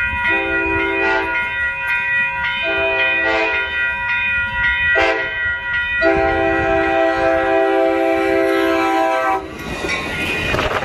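Train horn sounding for a grade crossing: two long blasts, a short one and a final long one, over the crossing's warning bell. Near the end the sound changes abruptly to a passenger train rolling past, with wheel noise on the rails.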